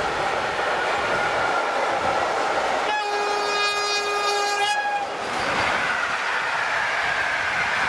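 A freight train of tank wagons rolls past with steady wheel-on-rail noise. About three seconds in, the approaching EP07 electric locomotive on the other track sounds one steady horn blast lasting just under two seconds.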